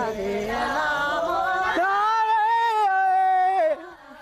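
Tu folk singing for the Anzhao circle dance: voices singing unaccompanied, rising to one long held note that stops about three and a half seconds in.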